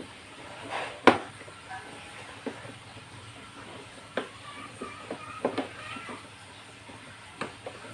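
Sharp clicks and snaps of the plastic case clips of a Lenovo all-in-one PC releasing as the case is pried apart, the loudest just after a second in and a few more spread through.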